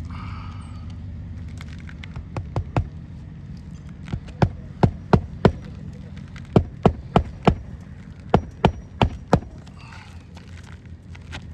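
Hammer driving roofing nails, struck in quick runs of three or four blows, about three a second, with short pauses between runs.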